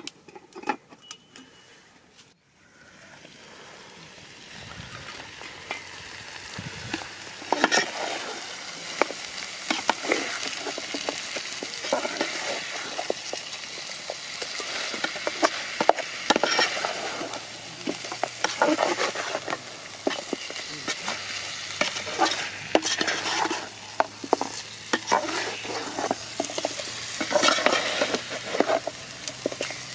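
Chicken frying in a pan, its sizzle building up after a brief break a couple of seconds in. It is stirred repeatedly, with short scraping strokes of a utensil against the pan.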